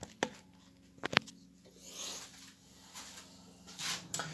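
Engine parts and tools handled on a workbench: a few sharp clicks and knocks, two close together about a second in, with some soft rustling, over a faint steady hum.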